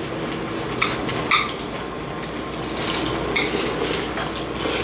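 Metal utensils clinking and clattering against dishes and a pot, a handful of separate sharp clinks with a short rattle about three and a half seconds in.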